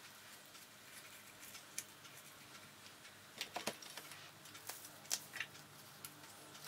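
Faint handling sounds of fingers tucking fresh parsley sprigs into stuffed red peppers: soft rustles and small clicks, with a few sharper clicks about three and a half and five seconds in.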